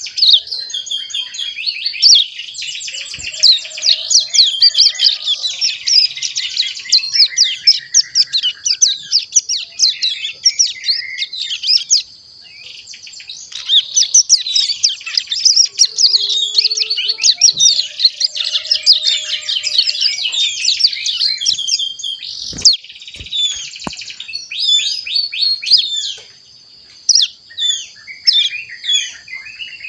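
A young ciblek gunung, a prinia, twittering a fast, rambling run of high chirps and trills: the practice song (ngeriwik) of a juvenile learning to sing. The song thins out to scattered chirps near the end.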